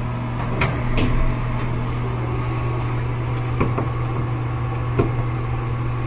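A steady low electrical hum, with a few light clicks and knocks scattered through it.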